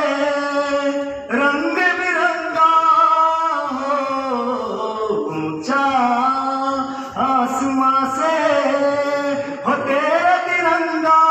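A man singing solo into a handheld microphone, without accompaniment, in long held and gliding notes, with phrases of a few seconds broken by short breaths.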